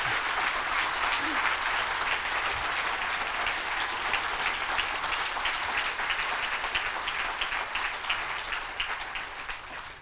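Audience applauding: a dense, steady patter of many hands clapping that thins out and fades near the end.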